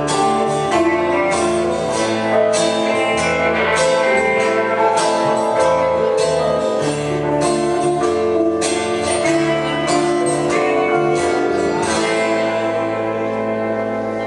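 Live band playing an instrumental passage with strummed acoustic guitar and a steadily struck tambourine over held notes. About twelve seconds in the beat stops and the last chord is left ringing.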